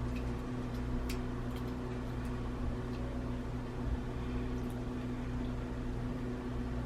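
A steady appliance-like hum with a few faint, light clicks.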